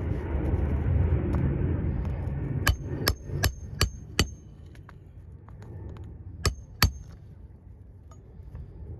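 Hammer driving a roofing nail through an asphalt shingle: five quick ringing strikes in a row, then a pause and two more blows near the end.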